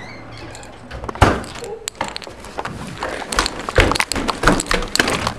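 Handling knocks and clicks from a camera being moved and carried, with one sharp knock about a second in and a rapid, irregular run of clicks and bumps in the last two seconds.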